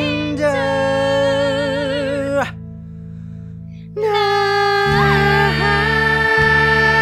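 Song with backing music: a man sings a long note with vibrato that breaks off about two and a half seconds in. After a short gap with only the bass accompaniment, he starts the drawn-out final 'nights', and a woman's voice joins him on the held last note.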